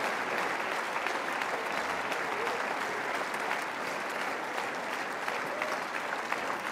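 Audience applauding steadily, easing off slightly.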